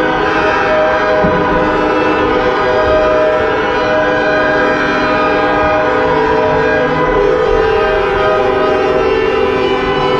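Many car horns blaring at once: a loud, steady chorus of overlapping held notes at different pitches.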